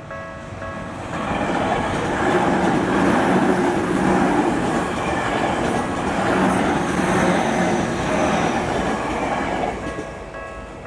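Tokyu Toyoko Line train passing over a level crossing. The loud passing noise builds about a second in and fades near the end, with a faint high whine from the wheels. The crossing's electronic warning bell rings in a fast, even repeating pattern, plain at the start and again as the train fades out.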